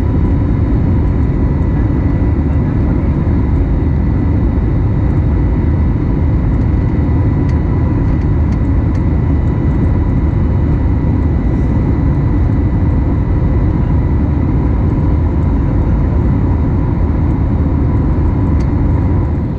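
Steady in-flight cabin noise of an Airbus A320neo airliner, heard from inside the cabin by the window: a loud, deep rumble of engine and airflow with a few steady whining tones riding on top, unchanging throughout.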